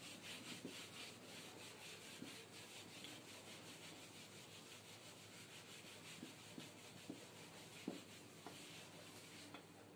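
Sponge duster wiping a whiteboard: faint, quick back-and-forth rubbing strokes as the writing is erased, with a light tap about eight seconds in.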